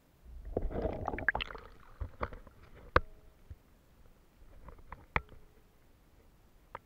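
Muffled sloshing and splashing of water, then a few sharp knocks and clicks, picked up by an action camera sealed in its waterproof case in a paddling pool.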